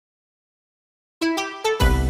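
Silence, then background music starts suddenly a little past halfway in: an upbeat tune with a beat.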